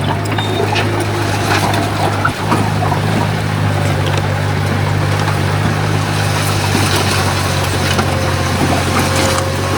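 Bulldozer's diesel engine running steadily under load, with scattered knocks and clanks over the drone and a brief dip a little over two seconds in.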